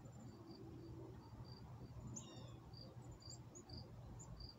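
Faint outdoor ambience: a cricket chirping steadily, about two short chirps a second, with a bird's brief call of falling notes about two seconds in.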